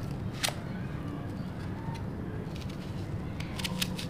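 Small kitchen knife cutting into a whole red onion held in the hand: a few crisp crunches as the blade breaks through the layers, one about half a second in and several close together near the end.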